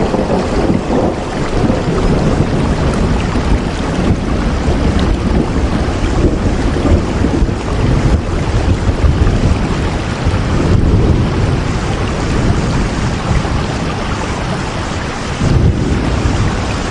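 Heavy rain pouring steadily, with a deep rumble underneath that swells near the start and again near the end, as in a thunderstorm.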